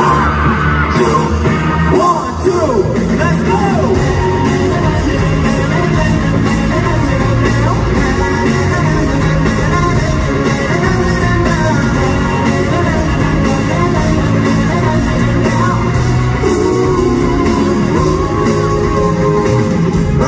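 Live pop music played loud through a concert arena's sound system, with a male vocalist singing into a handheld microphone over the backing track and the crowd screaming.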